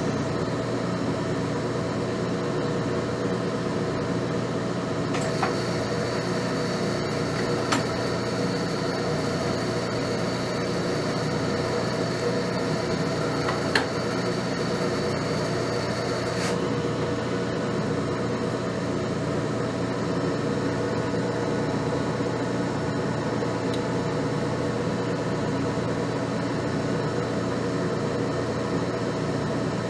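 Metal lathe running with a steady machine hum. A thin high whine joins about five seconds in and stops suddenly about eleven seconds later, with a few light clicks along the way.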